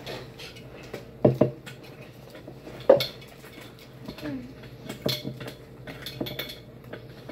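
Dishes and utensils clinking and knocking now and then, a few sharper knocks standing out about a second in and again about three seconds in.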